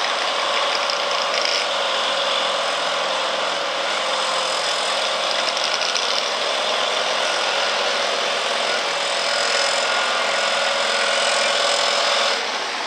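Gasoline engine of a square-body GMC 4x4 pickup running steadily at the start line of a truck pull.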